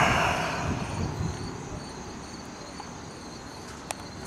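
Insects chirping in a steady chorus. A rush of noise on the microphone fades out over the first second, and there is one sharp click near the end.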